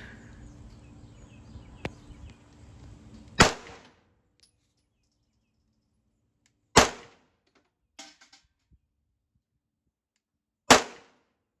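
Three gunshots fired at a target, spaced about three to four seconds apart, each a sharp crack with a short tail. Between the second and third shot come a few faint clicks.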